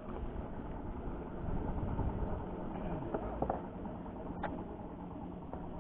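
Steady low engine hum, as of a fishing boat's engine idling, with one short sharp click about four and a half seconds in.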